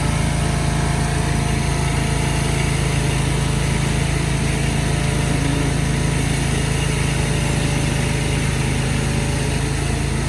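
Small engine of a remote-control laser screed running steadily during a screeding pass over wet concrete, with an even hum.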